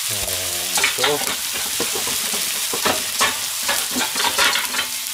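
Hiroshima-style okonomiyaki, a layer of cabbage and pork belly under a batter crepe, frying in a black frying pan: a steady sizzle with scattered crackles.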